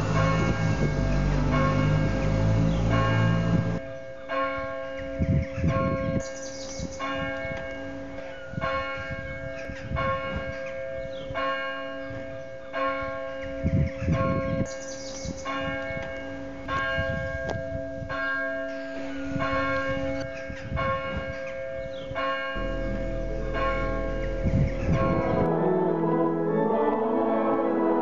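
Church bells ringing from a stone parish church tower, a stroke about every second over a lingering hum, with a low rumble in the first few seconds. Near the end the bells give way to a church organ playing.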